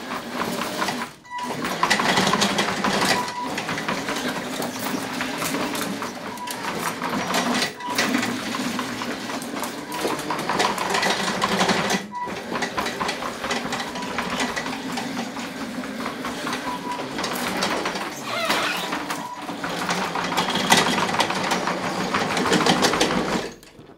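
Electric track-drive motors of a remote-control tracked lawn mower whining and grinding as it drives and turns under a rider's weight, with its mowing engine not running. The motors stop briefly a few times and cut off near the end.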